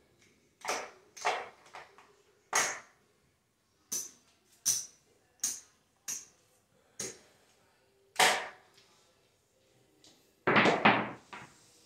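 Casino chips clicking against each other in a string of separate sharp clicks as bets are picked up off a craps layout and stacked. About ten seconds in, a louder second-long rattle of knocks, dice thrown and tumbling across the craps table.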